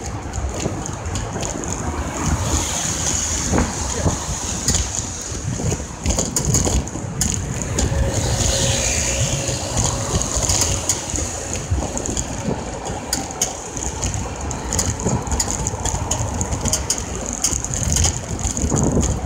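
Road and wind rumble from a vehicle moving through city traffic, with frequent knocks and rattles on the microphone as the camera shakes.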